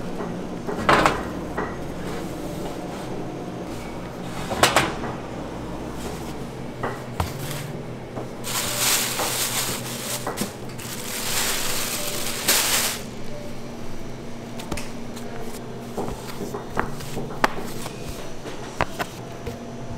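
Bakery work clatter: a few sharp knocks and small clicks of pans and tools over a steady machine hum, with two spells of hissing noise, each a couple of seconds long, about halfway through.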